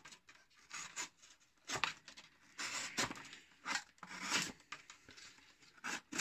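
Crivit folding pocket knife's steel blade slicing through cardboard in about five separate strokes. The blade, not very sharp, cuts the cardboard only fairly well.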